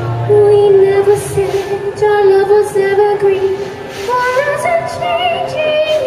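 A woman singing with musical accompaniment: she holds one long note, then climbs through higher notes near the end.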